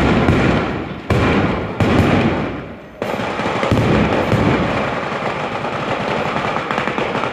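Daytime fireworks battery (batteria) of ground firecrackers firing in a rapid, continuous barrage of bangs like machine-gun fire. Fresh louder bursts kick in about a second in, again just before two seconds and at three seconds, then it settles into a dense, even rattle.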